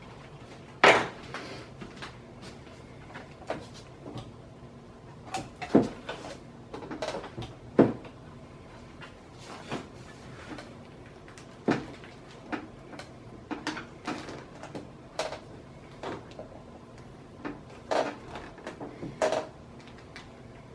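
Irregular knocks, taps and creaks of a fiberglass mold and the fuselage plug inside it being pushed and worked by hand to free the plug; the loudest knock comes about a second in, with smaller clicks scattered throughout.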